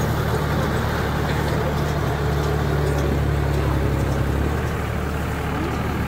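John Deere 5045D tractor's three-cylinder diesel engine running steadily under load while driving a tractor-mounted round baler picking up straw. The steady engine note dips slightly about four and a half seconds in.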